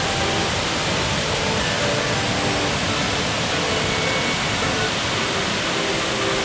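Steady rushing of a waterfall, a loud even roar of falling water with no letup.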